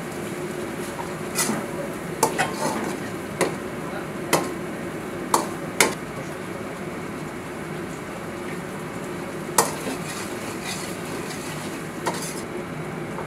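Metal ladle stirring chicken drumsticks in a thick gravy in a large wok, with sharp irregular knocks of the ladle against the pan, most in the first six seconds and a loud one near ten seconds, over a steady sizzle.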